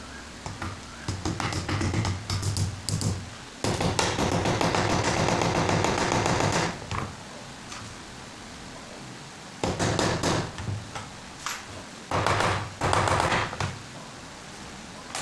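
Wood being worked with hand tools on a bench: clusters of taps and knocks against wood, with about three seconds of dense steady noise in the middle and a shorter burst near the end.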